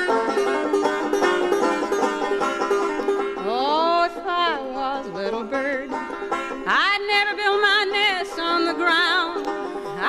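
Banjo playing a folk instrumental break: quick picked notes over a steady accompaniment. From about three and a half seconds in, and again near seven seconds, a melody line of long held notes comes in over it, sliding into pitch and wavering.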